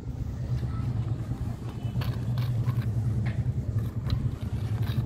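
A steady, low motor-like hum that pulses slightly, with scattered light taps and scratches as the cat claws and bites at a leather bag strap.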